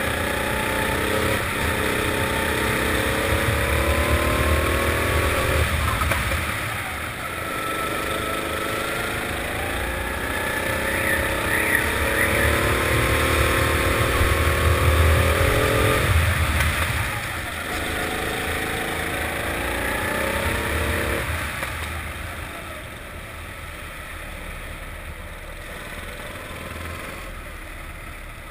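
Four-stroke rental kart engine revving up in three long pulls of rising pitch, each cut off sharply as the throttle is lifted. After about twenty seconds it falls back to a quieter, low-revving run.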